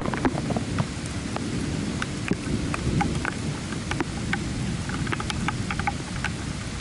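Rain falling steadily, with many close drips and splashes, over a low rumble of thunder that eases off near the end.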